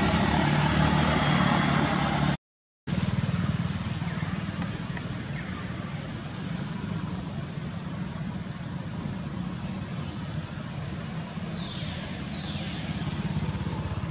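Steady low rumble with hiss of outdoor background noise, cut out completely for about half a second roughly two and a half seconds in. Two short falling squeaks sound near the end.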